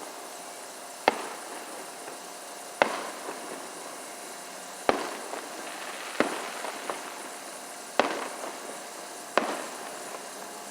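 Aerial fireworks shells bursting: six sharp bangs, one to two seconds apart, each trailing off in a short echo.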